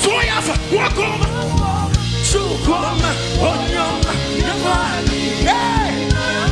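Live gospel praise music: a band with a fast, steady drum beat, about four strokes a second, and bass under voices singing.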